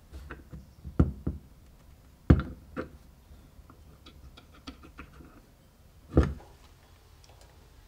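Sharp knocks and light clicks of a knife and its small brass handle fitting being handled and set down on a wooden workbench. There are a few knocks, the loudest about two seconds in and again about six seconds in, with light ticking clicks between.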